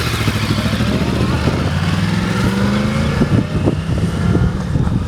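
2009 Yamaha R1's crossplane inline-four engine running loud. Its note climbs in pitch for about three seconds, then falls away with a series of sharp pops from the exhaust.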